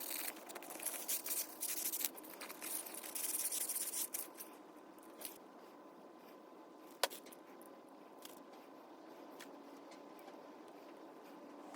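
Light hand sanding of small steel brake-caliper handbrake parts with 1000-grit sandpaper, taking off surface rust: quick rubbing strokes for about four seconds, then it stops. A single sharp click about seven seconds in.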